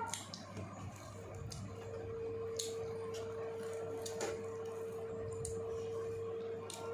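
Soft wet squishing and scattered small clicks as a lemon is squeezed over food, under a steady humming tone that holds one pitch from about a second in.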